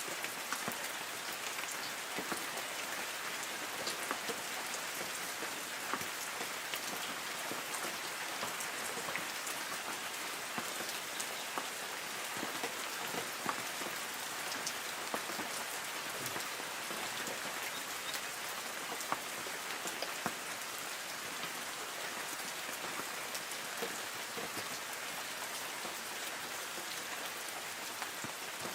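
Steady light rain falling on forest trees: a constant soft hiss of rain with many scattered individual drops pattering on leaves.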